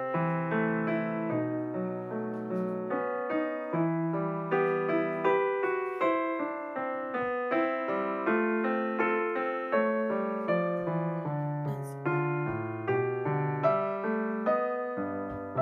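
Background piano music: a continuous run of struck notes, each fading away.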